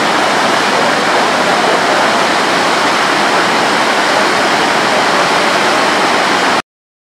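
Floodwater gushing out of a concrete roadside channel and pouring down over rocks: a loud, steady rushing torrent. It cuts off suddenly near the end.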